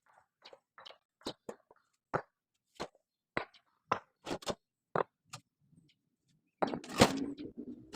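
A series of sharp, irregular clicks and knocks of hard objects, about one or two a second. After a short pause, a louder burst of clattering and scraping begins about six and a half seconds in, with one loud knock in it.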